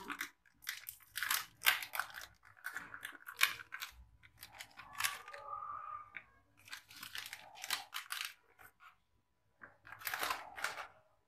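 Plastic-and-foil chocolate bar wrapper crinkling and tearing in irregular bursts as it is pulled open by hand, with short pauses between.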